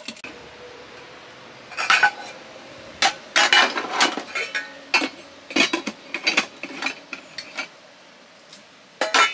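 Dishes clattering and clinking as metal pots, mugs and cutlery are handled in a plastic washing-up tub. The sound comes in several short runs of knocks and clinks.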